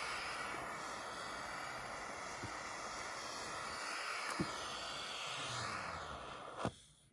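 Small handheld gas torch burning with a steady hiss, cutting off abruptly with a click near the end.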